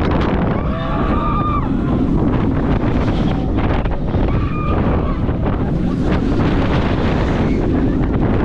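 Wind roaring over the onboard microphone with the rumble of the Blue Fire Megacoaster train running fast along its steel track, steady throughout, with a few brief wavering higher-pitched sounds over it.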